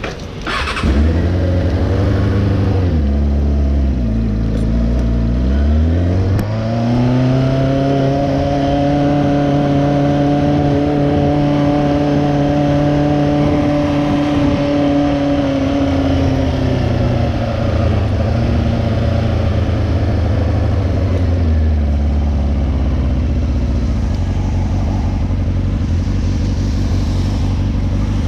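Motorcycle engine running while riding: it drops in pitch a few seconds in, picks up and holds steady for several seconds, then eases off again about halfway through.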